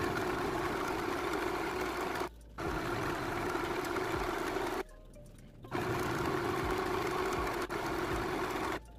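Small portable electric sewing machine running, stitching a straight seam through cotton-like fabric with a steady hum. It breaks off briefly twice and stops near the end.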